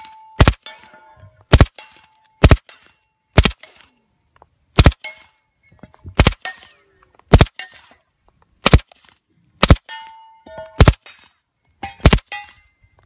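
Heckler & Koch MP5SD, an integrally suppressed 9mm submachine gun, fired in single shots: eleven sharp cracks about a second apart. Several shots are followed by a brief metallic ringing tone.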